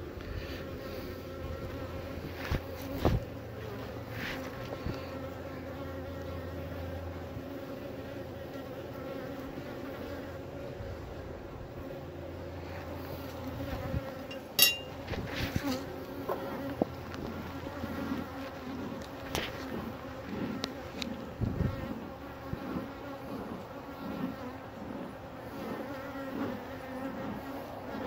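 Many honeybees buzzing around an open hive in a steady, even hum, with a few sharp clicks and knocks over it, the loudest about halfway through.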